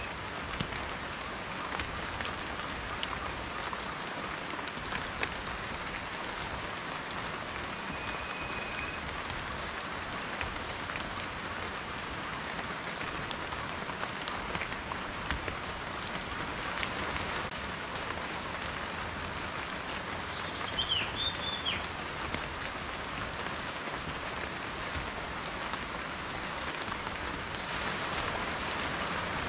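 Steady rain falling, an even hiss with scattered individual drops ticking. A few short high chirps come through about two-thirds of the way in.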